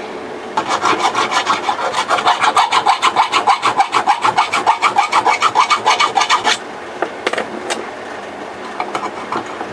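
Round file rasping back and forth inside a drilled hole in a plastic screwdriver handle, in rapid even strokes about five a second, to open the hole up for a nut. The filing stops about six and a half seconds in, and a few light clicks follow.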